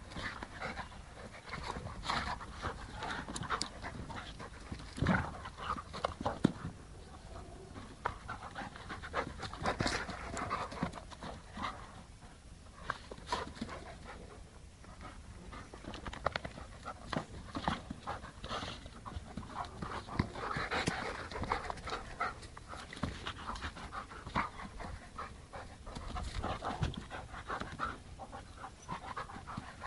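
Two Carpathian Shepherd dogs play-fighting: heavy panting mixed with irregular scuffles and short knocks as they wrestle.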